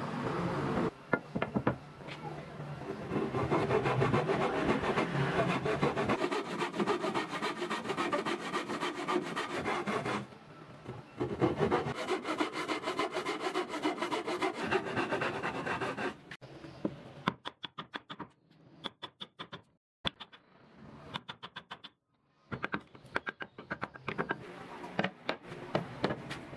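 Hand saw cutting a notch across a wooden bar, with quick back-and-forth strokes. There is a short pause about ten seconds in, and after about sixteen seconds the strokes come in quieter, broken runs.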